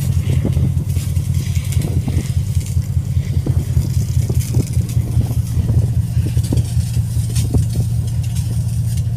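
A steady, loud low rumble under a fainter hiss and crackle of fire-hose water spraying and splashing on a steel ship deck.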